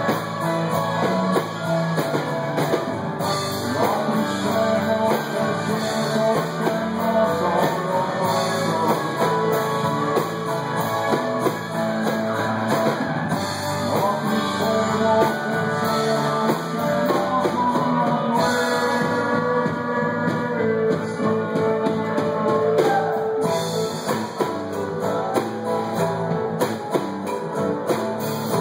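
Live rock band playing through the venue's amplification: guitars over a drum kit, heard from the audience.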